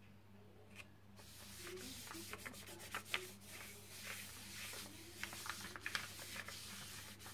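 A palm rubbing a sheet of paper pressed onto a gel printing plate, a dry scratchy rubbing full of small crackles that starts about a second in: burnishing the paper to lift the paint off the plate as a print.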